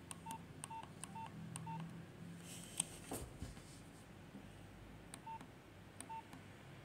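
Nokia 1600 keypad tones: short beeps, each with the click of a key, as the menu is scrolled. Five come quickly in the first two seconds and two more after about five seconds, with a louder click about three seconds in.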